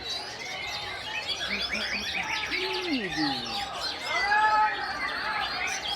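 Many caged white-rumped shamas (murai batu) singing at once, a dense, continuous overlap of whistles, chirps and trills.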